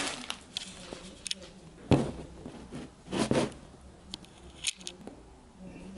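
Camera being handled and set in place: a string of knocks, clicks and rustles, the loudest a sharp thump about two seconds in and a longer rustle just after three seconds.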